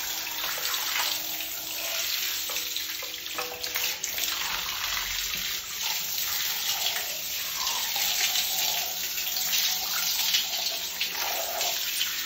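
Handheld shower spraying steadily onto sock-covered feet and a tiled shower floor, water running and splashing.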